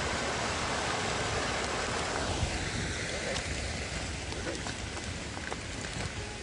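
Small woodland stream rushing over rocks, an even hiss that drops away about two seconds in. A quieter outdoor hiss follows, with a few faint footsteps on a gravel track near the end.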